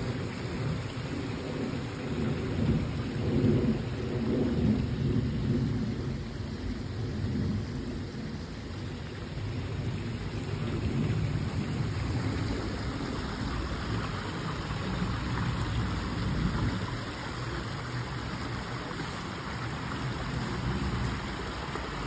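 Water of a rocky creek rushing steadily over stones and small rapids, with a low, uneven rumble underneath.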